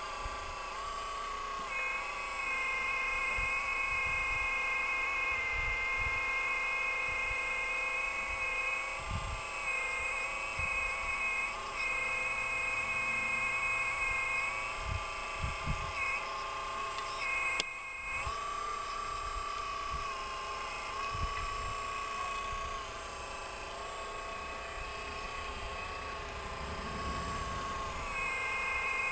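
Radio-controlled excavator's motor whining steadily, its pitch dipping and shifting every few seconds as the machine works, with scattered low thumps and a sharp click about two-thirds of the way through.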